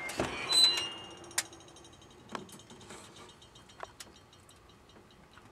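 Oven door being opened: a short scraping squeak with a ringing metallic tone in the first second, followed by a few light, sharp clicks and clinks.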